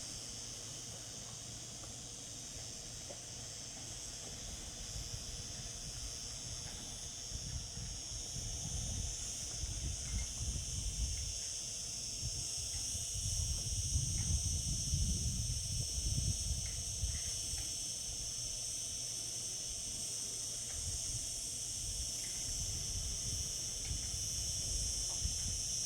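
Cicadas singing in summer: a steady, unbroken high-pitched drone, with an uneven low rumble underneath that is loudest around the middle.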